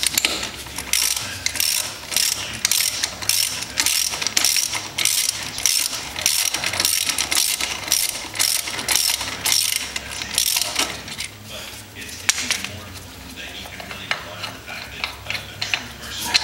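Hand ratchet wrench clicking in quick repeated strokes as a bolt on a motorcycle's rear axle area is backed out. The clicks thin out after about eleven seconds.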